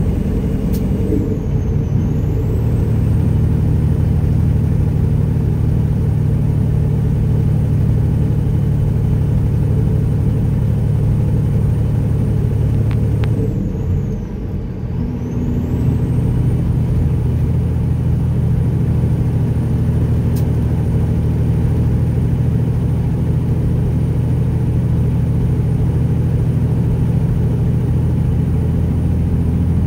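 Peterbilt 379's straight-piped Detroit Diesel Series 60 engine running steadily at highway speed, heard from inside the cab as a deep drone. About fourteen seconds in the note briefly drops and comes back at a slightly different pitch.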